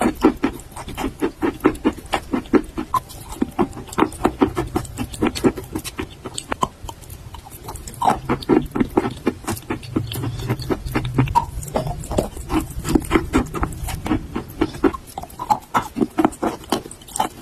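Close-up chewing and crunching of eaten chalk: a continuous run of crisp, irregular crunches several per second.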